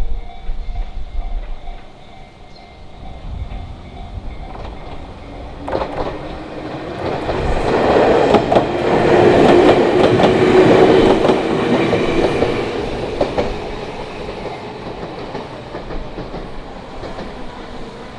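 Fukushima Kotsu electric train passing over a level crossing, growing louder from about five seconds in, loudest around the middle with wheels clacking over rail joints, then fading away.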